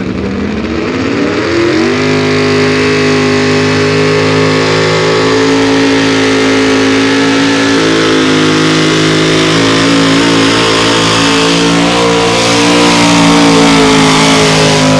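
A competition pulling vehicle's engine at full throttle: it revs up over the first two seconds, then holds high, steady revs under load with a heavy hiss on top. The pitch wavers slightly in the middle, and it grows louder near the end.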